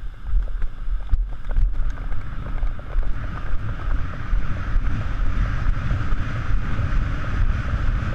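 Wind buffeting the microphone in an uneven low rumble, over a steady hiss.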